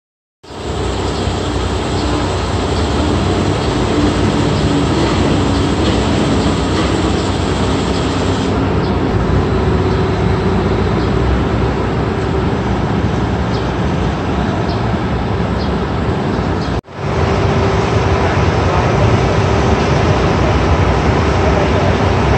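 Steady, loud noise of bulk truck loading: dry bulk material pouring down loading chutes into open truck trailers, with the feeding conveyors running. It cuts out for an instant about three-quarters of the way through.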